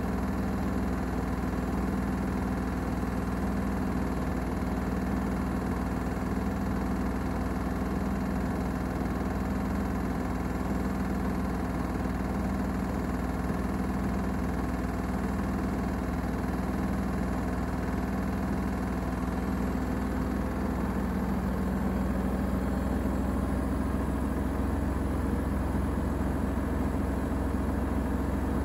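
Gorenje UseLogic front-loading washing machine on its spin-only programme: drum and motor running with a steady mechanical hum. The tone of the hum changes a little about twenty seconds in.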